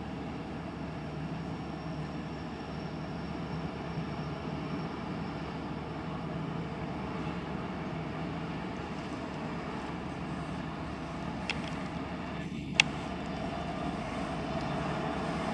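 Diesel locomotives of an approaching freight train led by Canadian Pacific #7018: a steady low rumble that grows gradually louder as the train nears. Two sharp clicks about a second apart come late on.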